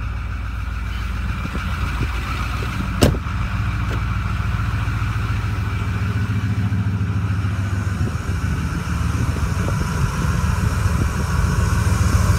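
2008 Ford F-250's 6.4-litre Powerstroke twin-turbo V8 diesel idling steadily shortly after a cold start. One sharp knock sounds about three seconds in, and near the end the idle gets a little louder as it is heard close to the tailpipe.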